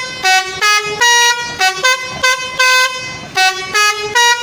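Telolet multi-tone bus horn playing a quick melody: a rapid run of about a dozen short notes at changing pitches, a couple held a little longer.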